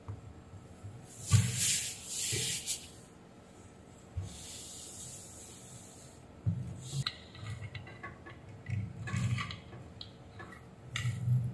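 Spray cleaner hissing onto a water-damaged circuit board in two bursts, the second longer and steadier. From about six seconds in comes the rub and scuff of a cloth wiping the board, with light knocks of the board against the bench.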